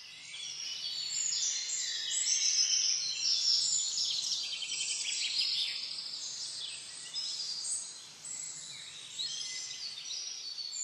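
Many small birds chirping and singing together, a dense chorus of short high calls that grows louder over the first couple of seconds.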